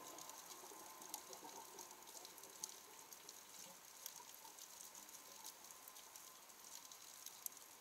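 Near silence underwater: a faint hiss scattered with tiny irregular clicks and crackles.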